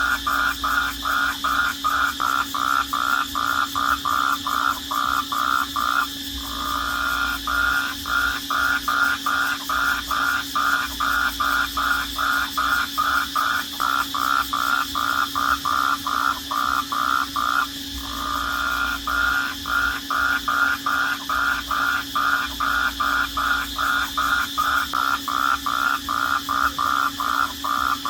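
Crickets chirping at night in a loud, even rhythm of about three chirps a second, pausing briefly twice, over a steady high trill.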